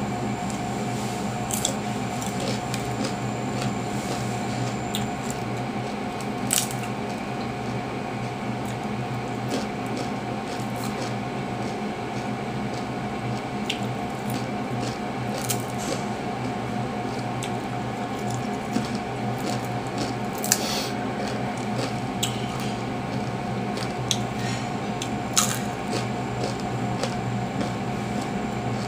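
Crispy shrimp fritter (ukoy) being broken by hand and bitten, giving scattered sharp crunches every few seconds. A steady hum from an electric fan runs underneath.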